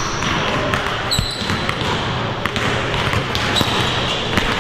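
Busy basketball gym: several basketballs bouncing on a hardwood court, with short sneaker squeaks about a second in and near the end, over the chatter of voices.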